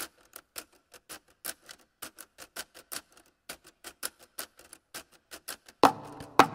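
A run of sharp ticking clicks, about four or five a second and a little uneven, like a clock. Near the end a loud hit starts pitched music.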